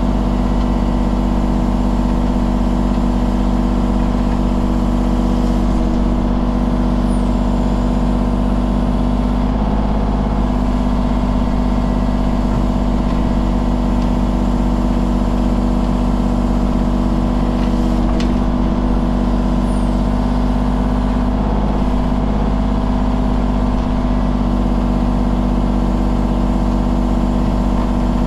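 Mini excavator's diesel engine running at a steady speed while digging out the driveway base.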